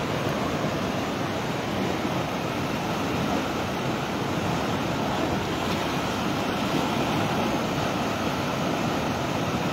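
A swollen, muddy river in flood rushing past the embankment, a steady roar of water with no pauses. The speaker takes the spate for the result of a cloudburst upstream.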